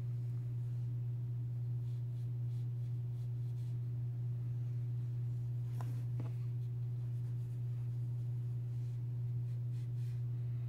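Steady low hum, with a couple of faint clicks about six seconds in.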